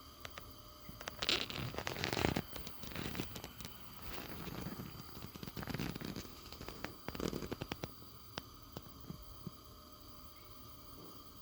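Handling noises: scattered clicks and short rustling, crackling sounds that die down after about eight seconds.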